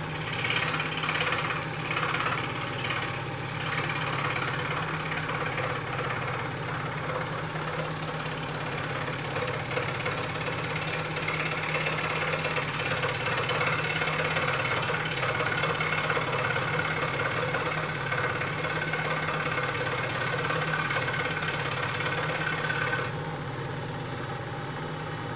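Scroll saw running, its blade cutting through balsa wood with a steady hiss over the motor's low hum. About two seconds before the end the cutting noise stops, and the saw runs on.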